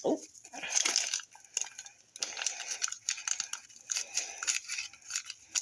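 Instant ramen seasoning packet crinkling and being shaken as the powder is poured onto the dry noodles. It comes as irregular rustling, crackly bursts with small clicks.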